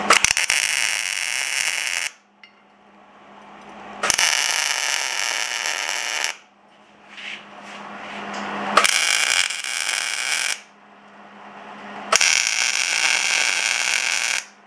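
Wire-feed (MIG) welder arc tacking steel: four welding bursts of about two seconds each, separated by short pauses.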